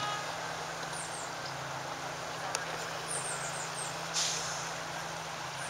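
Steady low drone of a small river launch boat's engine, with a few short high chirps and a brief hiss about four seconds in.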